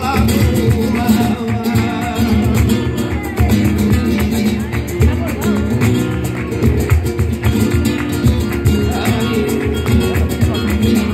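Live flamenco Christmas carol (villancico) at a zambomba: a Spanish guitar playing with rhythmic hand-clapping (palmas), the group's voices singing at times.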